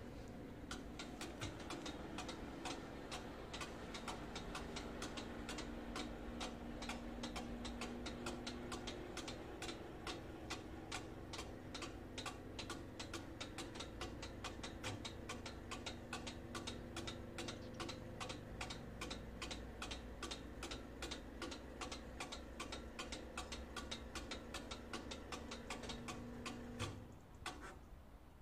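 Italian level-crossing bell (FS64 bell box) striking in a rapid, even run while the barriers lift, cutting off suddenly near the end as the red warning lights go out.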